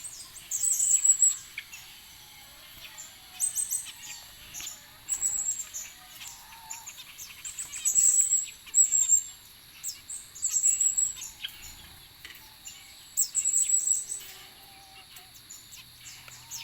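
Small aviary birds chirping, high and thin, in clusters that come every couple of seconds.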